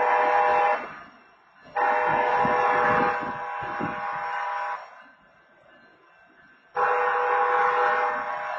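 Locomotive air horn sounding a chord of several notes in blasts: a short one at the start, then two long ones of about three seconds each, with some low rumble under the second.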